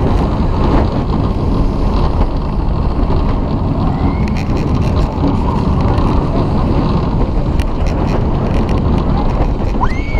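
Wind rushing over the microphone and steady rumbling of a roller coaster train on steel track at speed, on a launched steel coaster. A brief rising high tone sounds near the end.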